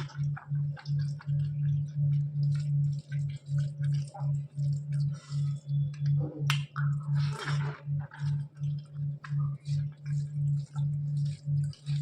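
Close-up eating sounds: wet chewing and lip smacks with soft squishy clicks from hand-mixed rice and curry. Under them, a low hum pulses evenly about three times a second.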